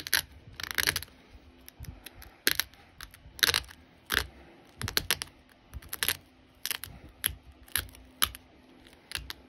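Opalite glass flake being pressure-flaked with a copper-tipped pressure flaker: a run of short, sharp snaps, one to two a second, as small flakes pop off along the edge.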